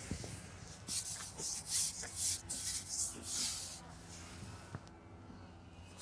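A carbon fishing pole rubbing as it is slid out through the hands. It makes a run of short, bright rubbing hisses lasting about three seconds.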